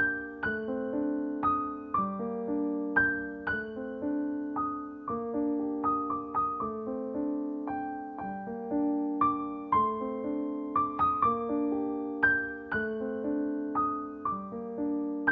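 Gentle background piano music: single notes and soft chords struck at an unhurried pace, each one ringing and fading into the next.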